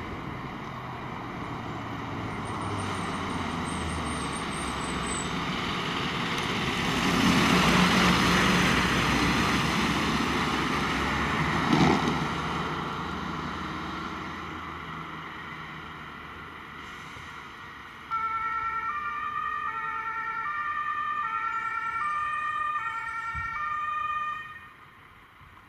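A fire engine drives past, its engine and tyre noise swelling to a peak and then fading away. About eighteen seconds in, a two-tone emergency siren starts abruptly, stepping between a high and a low pitch about every half second for some six seconds before stopping.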